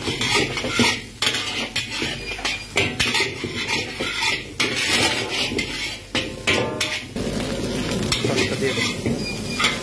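A metal spatula scrapes and clanks rapidly and irregularly against a large metal wok as fried rice and vegetables are stir-fried. The frying food sizzles throughout.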